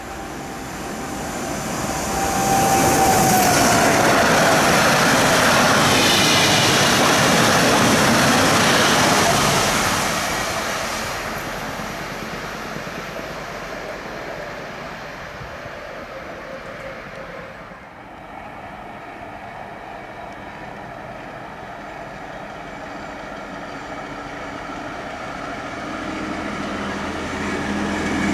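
A PKP Intercity ED160 (Stadler FLIRT) electric multiple unit passes: the rush of its wheels and air builds, stays loud for about six seconds and fades as it runs away. A high whine drops in pitch just as it arrives. After an abrupt change about eighteen seconds in, a WM15 track motor car is heard approaching, growing louder near the end.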